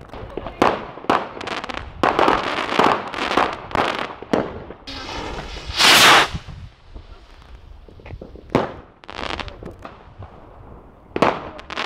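New Year's Eve fireworks: repeated sharp bangs and cracks of firecrackers and bursting rockets. About six seconds in, a rocket launches from close by with a loud rushing hiss.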